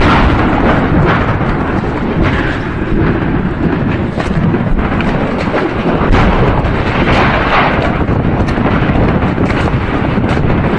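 Continuous low rumble from a hit ammunition dump, with scattered sharp cracks of rounds going off throughout.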